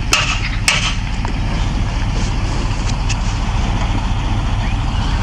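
A motor vehicle's engine running nearby with a low, steady rumble. In the first second come two sharp clicks as a knife slices mushroom pieces that drop into a cast-iron pot.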